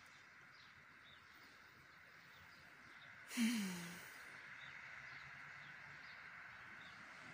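Quiet garden ambience: a steady faint hiss with distant small birds chirping faintly. About three and a half seconds in comes one short, sudden sound with a low falling tone, the loudest moment.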